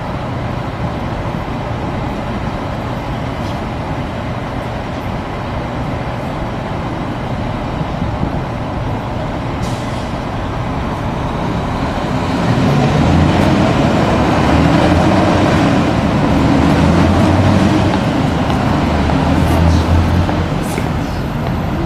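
City street traffic noise. About twelve seconds in, a heavy truck passes close, its engine running low and loud for several seconds before easing off.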